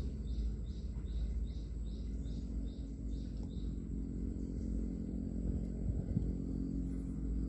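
A small bird chirping: a short high call repeated evenly about two and a half times a second, stopping about halfway through, over a steady low rumble.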